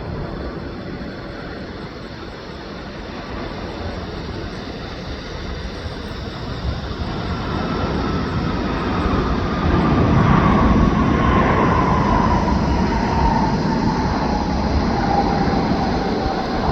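Jet airliner's engines growing louder as it passes close by, with a whine that slides down in pitch as it goes past.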